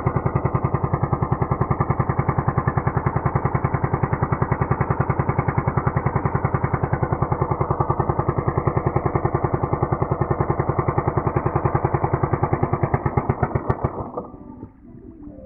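Small fishing boat's engine running steadily with an even, rapid beat, then cutting out about 14 seconds in.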